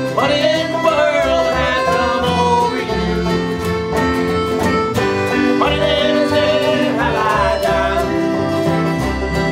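Acoustic folk band playing an instrumental passage: strummed guitar and banjo, with a melody line that slides up into its notes.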